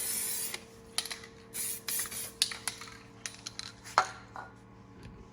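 Aerosol spray can of primer sprayed in several short hissing bursts, the first about half a second long, touching up a missed spot. A sharp click about four seconds in.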